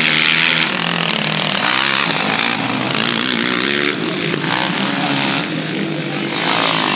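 Racing quads' engines revving up and easing off over and over, their pitch rising and falling with the throttle.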